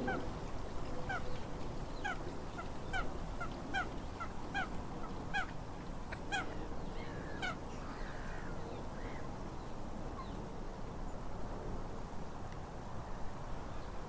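Goose on a pond honking in a regular series of short calls, a little over one a second with fainter answering calls between, dying away about eight seconds in. A steady low rumble lies underneath.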